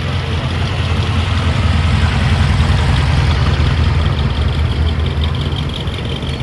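Car engine running at a low, steady idle-like rumble, growing louder about a second and a half in and easing off again after about four seconds.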